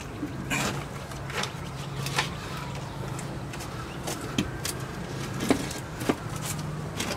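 A plywood board being worked into a golf cart's metal battery-compartment frame: scattered knocks, clicks and scrapes of wood against metal, over a steady low hum.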